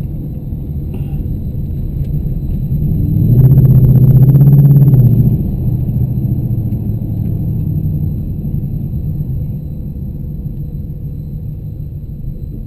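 Car engine heard from inside the cabin, running at low speed with a steady low hum. About three seconds in it gets much louder for about two seconds under throttle, then eases back and quietens toward the end.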